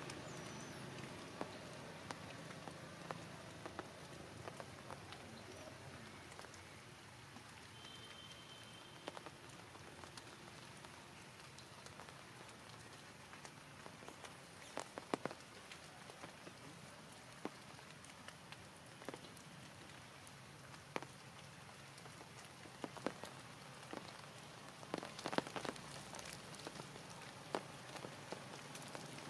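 Steady rain, with scattered drops ticking and tapping on nearby surfaces, a little more thickly around the middle and near the end.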